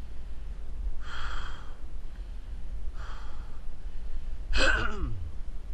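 A man breathing hard: two heavy breaths, then a louder gasping exhale that falls in pitch.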